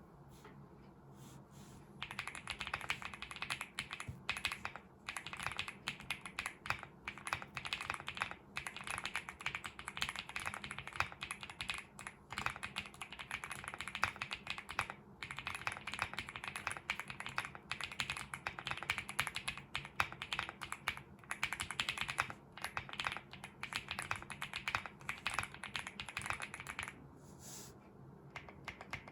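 Fast, continuous typing on a Finalkey V81 Plus mechanical keyboard with AKKO Cream Yellow Pro linear switches, lubed with Krytox 205g0 and filmed, and with all foams fitted. It makes a dense, rapid stream of keystrokes that starts about two seconds in and stops a couple of seconds before the end.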